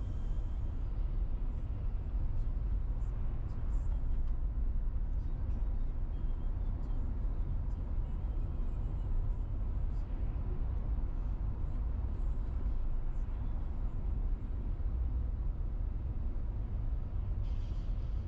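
A car driving in city traffic: a steady low rumble of engine and road noise that does not change.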